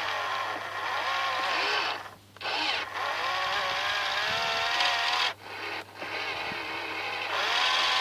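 Small electric geared motors of a radio-controlled model cable excavator whining as they run. The pitch rises and falls with motor speed. The motors stop briefly twice and wind up again each time.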